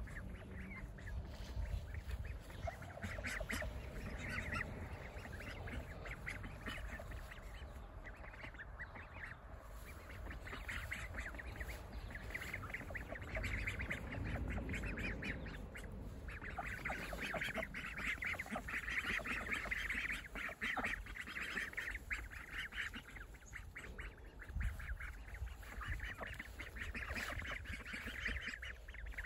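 A flock of young Saxony ducks calling together, many overlapping quacks and chattering calls that grow busier around the middle and again near the end.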